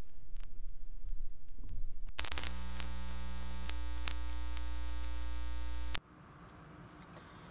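Electrical mains hum from the turntable's phono signal chain through a Pyle PP999 preamp. The hum swells about two seconds in to a loud, harsh buzz and cuts off suddenly after about four seconds. This is ground hum from a loose ground wire.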